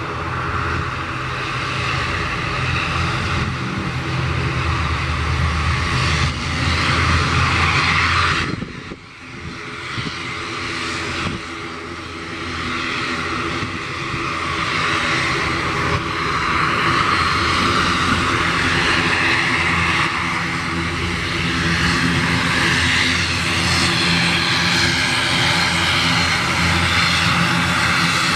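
Twin turboprop engines of an ATR airliner running at taxi power: a steady propeller drone with several even tones under a turbine hiss. The sound drops away suddenly about nine seconds in, comes back, and is louder in the second half.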